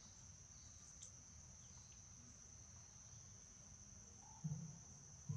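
Insects droning steadily at one high pitch, with two brief low thumps near the end.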